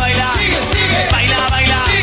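Dance band playing an instrumental passage of a song: a steady bass-and-drum beat about twice a second under keyboard melody lines that slide up and down.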